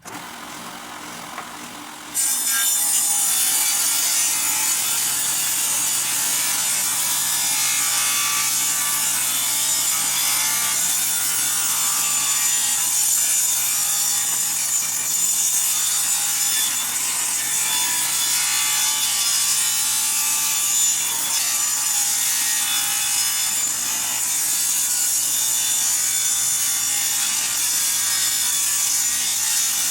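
Table saw ripping a long wooden board lengthwise, the blade cutting steadily and without a break. The sound jumps sharply louder about two seconds in and then holds steady.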